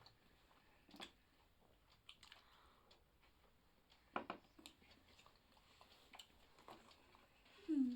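Soft chewing and biting of pizza, with scattered small clicks and knocks. Near the end a short low hum-like voice sound, falling in pitch, is the loudest moment.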